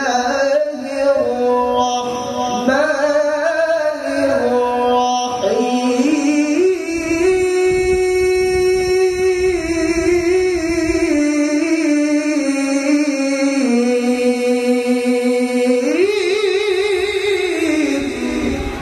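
Male qari's melodic Quran recitation (tilawah), sung through a handheld microphone. The voice moves through ornamented turns, then holds one long, wavering note for about nine seconds before rising again near the end.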